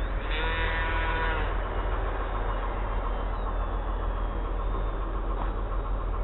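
Steady low rumble of wind on the microphone, with the faint whine of the distant RC plane's electric motor and propeller drifting in pitch a few seconds in. A brief pitched sound with several overtones, lasting about a second, comes about a third of a second in.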